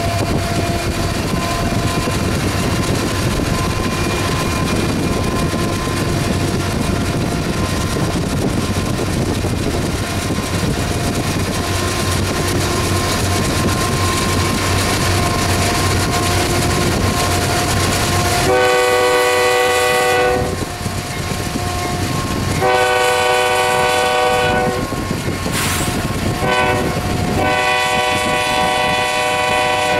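Freight train's diesel locomotives running past with a steady rumble of engines and wheels. About two-thirds of the way in, a locomotive air horn blows a chord in two long blasts, a short one and a final long one, the standard grade-crossing signal.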